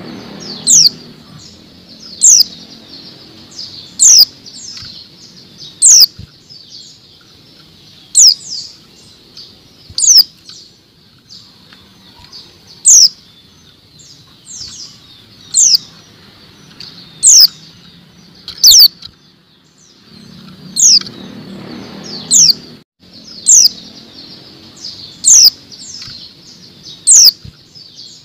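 Female white-eye (pleci) giving single sharp, high chirps that drop in pitch, repeated every one to two seconds, with bouts of wing fluttering in the cage. This is the call that keepers play to set male white-eyes singing.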